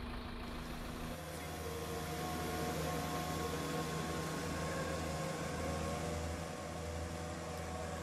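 Mobile crane's engine running steadily as it hoists a prefabricated house module: a low even hum with a few held tones.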